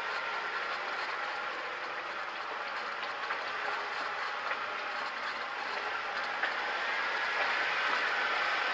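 Jeep driving slowly over a rocky dirt trail: the steady running noise of the vehicle and its tyres on dirt and stone, with one small knock and a slight rise in level in the last couple of seconds.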